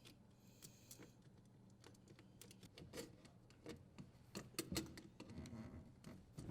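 Faint scattered clicks and taps of small parts being handled at a dishwasher's electrical terminal box, as the strain relief nut is threaded and tightened; the clicks come more often in the second half.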